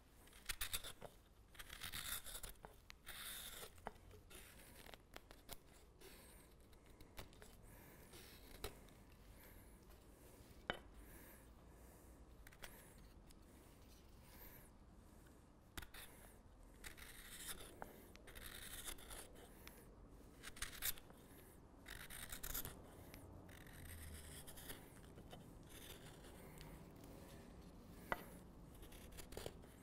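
Hook knife cutting into the bowl of an alder spoon: faint scraping, shaving cuts in short strokes, bunched into runs with pauses between and a few sharp clicks.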